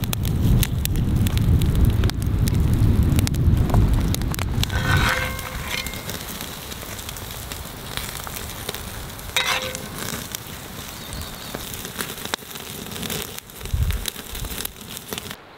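Open campfire crackling, with many scattered sharp pops and a low rumble through the first few seconds. Two brief higher-pitched sounds come about five and nine seconds in.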